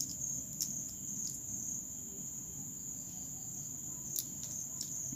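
A few faint clicks as small plastic and metal parts of a power-tool trigger switch are handled and fitted into the switch body by hand, the clearest about half a second in and about four seconds in. A steady high-pitched chirring runs underneath.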